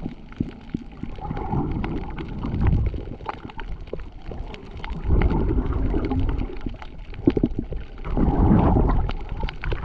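Muffled gurgling and sloshing of water heard with the camera underwater, swelling three times, about every three seconds, with scattered short clicks throughout.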